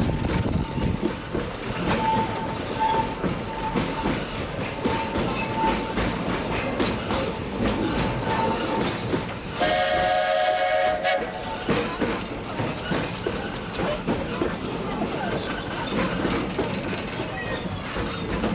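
Walt Disney World Railroad steam train running, with a steady rumble and wheels clacking over the rail joints. About halfway through, the locomotive's steam whistle blows once for about a second and a half.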